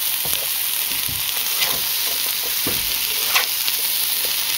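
Spinach and dandelion flowers sizzling in a hot frying pan as they sauté down, with short scrapes and taps from being stirred around the pan.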